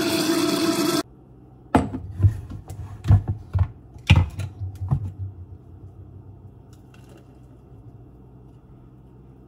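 Countertop blender running, blending a thick green smoothie; it stops abruptly about a second in. Then a handful of knocks and clunks as the plastic blender jar is handled.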